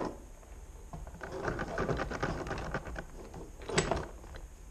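Rapid small clicks and rattles of parts and tools being handled on a workbench, with one sharper click near the end.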